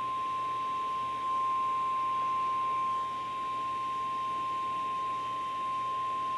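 NOAA Weather Radio's 1050 Hz warning alarm tone: a single steady, unbroken tone over faint radio hiss, the signal that a warning message follows.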